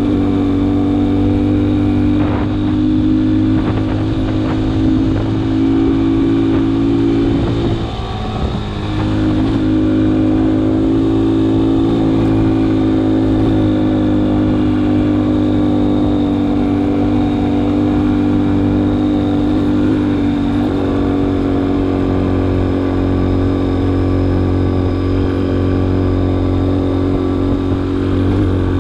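Vehicle engine running steadily under load, its pitch dropping briefly about eight seconds in and then picking up again.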